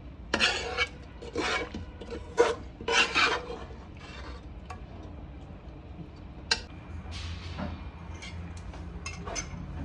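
Metal serving spoon scraping and knocking against an aluminium cooking pot while chicken masala is spooned onto a layer of rice: several short scrapes, then one sharp knock and a few lighter scrapes and clicks.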